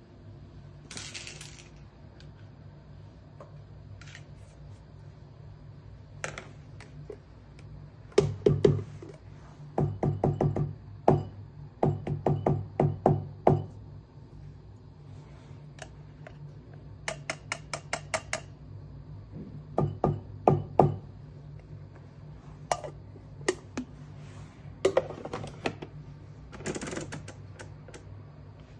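Bursts of sharp taps and knocks on a small cup and metal tray as ground coffee is knocked out of a grinder's dosing cup, in several separate clusters including one fast run of light ticks. A steady low hum runs underneath.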